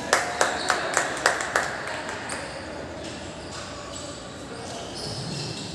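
Match sounds in a large hall: six sharp knocks about a third of a second apart in the first second and a half, then brief high squeaks over a low background of voices.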